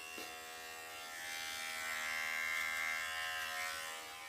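Electric shaver buzzing steadily, growing louder between about a second and a half and three and a half seconds in.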